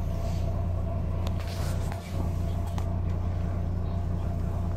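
Steady low drone of a double-decker bus's engine and running gear heard from inside the upper deck, with a few light clicks and a brief dip about two seconds in.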